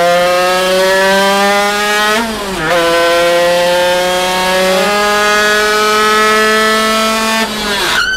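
Zündapp KS50's tuned 50 cc two-stroke single screaming at full throttle on a roller dyno, its pitch climbing steadily toward about 13,000 rpm with a brief dip about two and a half seconds in. Near the end the revs fall away sharply, where the engine seizes its piston at about 13,000 rpm.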